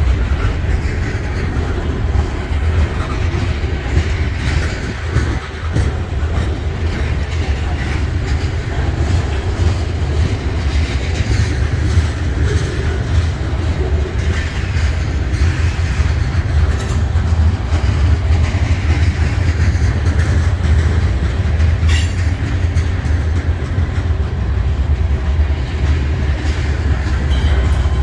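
Tank cars of a Norfolk Southern manifest freight train rolling slowly past at close range: a steady low rumble with wheels clicking over the rail joints. It grows a little louder near the end as the rear locomotive draws near.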